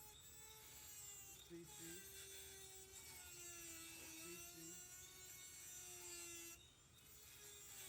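A Dremel rotary tool with a small cutoff wheel running faintly, its whine wavering and dipping in pitch as it bears on the work. It is cutting slots into the heads of snapped-off security bolts so they can be turned out with a flat screwdriver.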